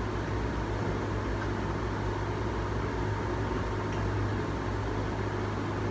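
Steady low hum and hiss of room noise, even throughout.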